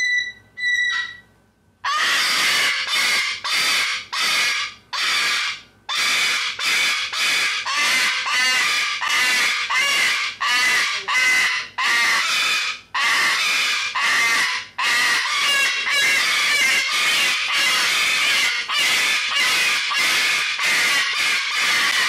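Cockatoo screaming: two short whistled calls at the start, then loud, harsh screams repeated about twice a second, running almost together near the end.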